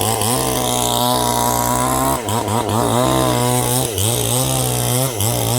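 Two-stroke chainsaw cutting sengon wood at high revs, the engine note sagging under load and picking back up several times as the chain bites.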